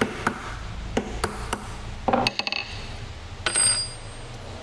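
Light hammer taps on a steel pin punch, about five in the first second and a half, driving the roll pin out of a clutch hydraulic line fitting on a master cylinder. Then come handling clatter and, near the end, a short metallic ring as a small steel part is set down.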